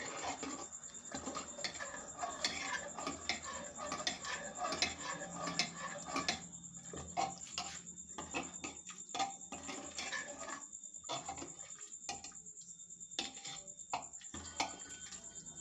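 Metal ladle stirring thick chickpea curry in an opened pressure cooker, with irregular clinks and scrapes of metal on the pot.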